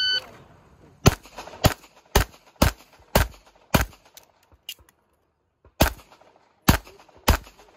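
A shot timer's electronic start beep, then rapid handgun fire: about nine pistol shots roughly half a second apart, with a pause of nearly two seconds in the middle.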